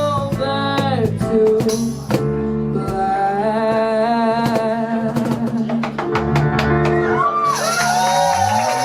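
Live band music: guitar and held chords with a singer, who bends and wavers the pitch on sustained notes near the end.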